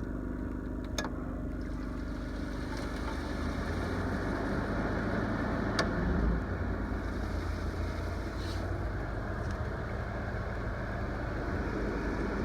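5000 BTU window air conditioner being switched on: a click about a second in, then a steady hum from its fan and compressor that grows a little louder a few seconds later as it takes up load from the Yamaha 2000 inverter generator.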